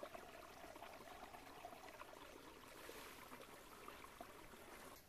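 Faint, steady trickling of a small forest brook, which stops abruptly near the end.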